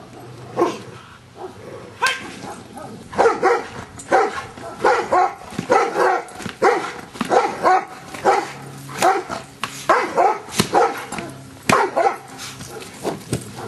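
Giant Schnauzer barking in a long, rapid run, about two barks a second, after a few spaced barks at the start.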